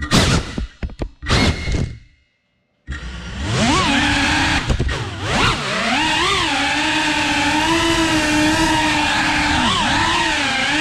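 FPV quadcopter's brushless motors and propellers whining, the pitch swooping up and down as the throttle is worked, then holding fairly steady. Before that, about the first two seconds hold a few short loud bursts, followed by a brief silence.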